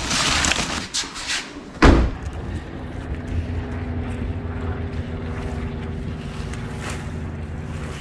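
A car door slams about two seconds in, then a car engine runs steadily.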